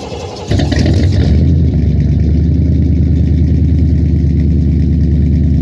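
The engine of an OBS-body GMC Sierra pickup running steadily, jumping louder about half a second in. The truck has an exhaust manifold leak.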